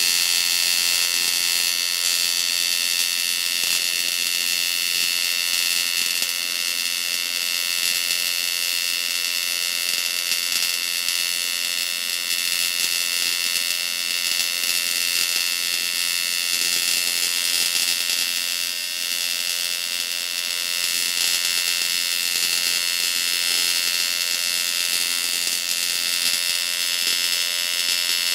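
TIG welding arc giving a steady buzzing hiss as silicon bronze filler rod is fed in, brazing a crack in a cast iron fire grate.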